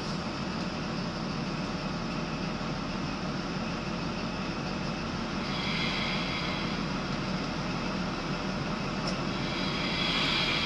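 Steady diesel engine and running noise heard from inside the cab of a Class 43 HST power car as the train moves. A higher hiss swells about halfway through and again near the end.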